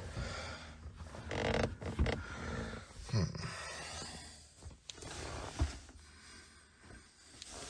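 Rustling and creaking inside a pickup cab as someone shifts in the driver's seat and sets a foot on a new footrest by the floor, with a few soft thumps and knocks in the first half; it grows quieter after about four seconds.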